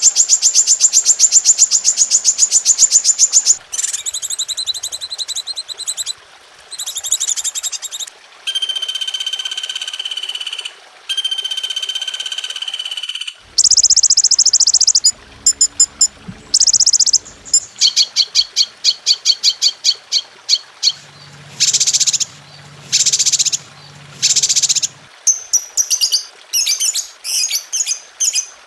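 A string of different birds' calls and songs spliced one after another, switching abruptly every few seconds between fast high trills, steady whistles and repeated chirps. This is a masteran tutor compilation for teaching cage songbirds.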